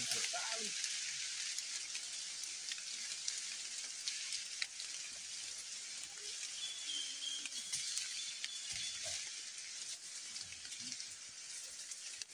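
Steady high hiss of tropical forest insects, with a few faint clicks and a few faint low grunts from a snared wild pig.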